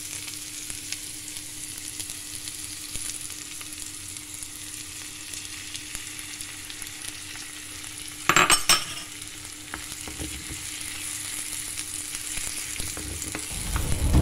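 Shredded cabbage and sliced red onion sizzling in oil in a nonstick frying pan, stirred with a wooden spatula. About eight seconds in the sizzle flares loudly for half a second as beaten egg goes into the hot pan.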